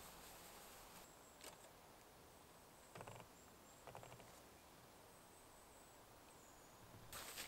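Near silence: faint woodland ambience with a few soft, short rustles and clicks, about three, from sticks and forest-floor litter being handled.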